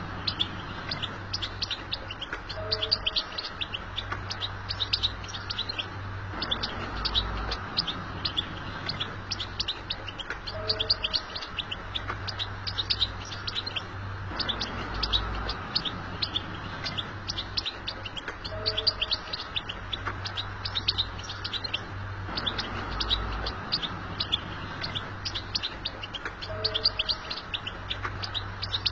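European goldfinch twittering: a rapid, continuous run of short high chirps, the same stretch repeating about every eight seconds.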